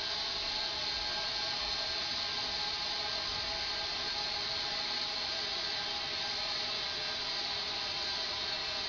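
Steady hiss of compressed air from a tank at about 105 psi rushing through an open sprinkler valve, even in level with faint fixed tones in it.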